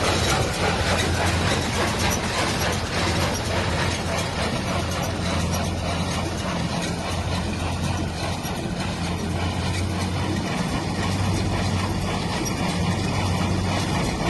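John Deere small square baler running off a little Dexter tractor. The tractor engine's steady low drone sits under the baler mechanism's continuous fast clatter.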